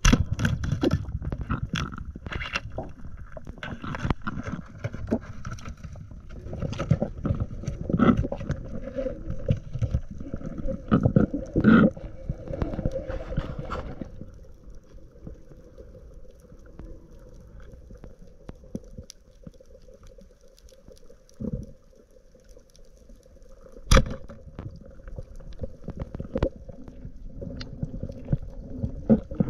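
Underwater noise picked up through an action-camera housing while a spearfisher swims with a speargun: water rushing and gurgling with knocks and swishes, busy for the first half and calmer after. A steady hum runs underneath, and a single sharp click comes late on.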